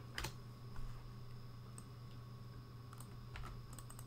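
A few scattered computer-keyboard keystrokes, sharp separate clicks with the first one the loudest, over a low, steady electrical hum.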